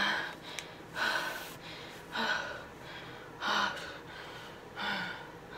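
A woman breathing heavily in five deep, audible breaths a little over a second apart. She is fighting off nausea and faintness after forcing down water.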